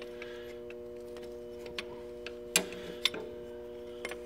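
Open-end wrench clicking against a 5/8 fuel line compression nut as it is turned by hand: a few sharp metallic clicks, the loudest about two and a half seconds in, over a steady hum.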